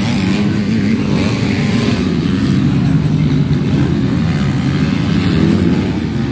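Motocross bikes' engines running and revving on the track, several engine pitches rising and falling together.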